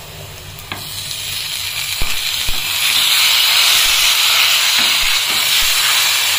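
Marinated chicken pieces dropped into hot oil and fried onions in a small steel kadai, sizzling. The sizzle grows from about a second in and is loud and steady by about three seconds. A few knocks come as the chicken goes in and a silicone spatula stirs the pan.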